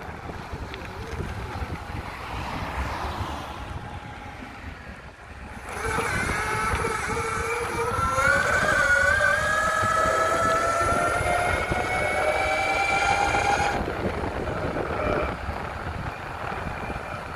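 SYL-08 V3 electric mountainboard riding over rough ground: tyre rumble and wind on the microphone. About six seconds in, the electric motors' whine comes in and climbs slowly in pitch as the board speeds up. The whine cuts off a few seconds before the end.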